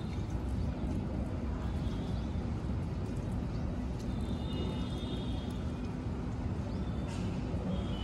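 Steady low outdoor background rumble, with faint high-pitched chirping three times.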